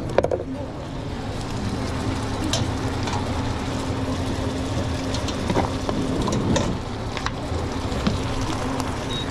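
Busy commercial kitchen background: a steady rush of noise with scattered clinks and knocks. A steady hum comes in about a second and a half in and fades out near the seven-second mark.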